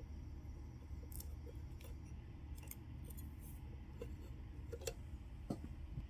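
Faint scattered small clicks and light taps of metal tweezers working the tiny coaxial cable connector off a Caddx Vista video transmitter, over a low steady hum.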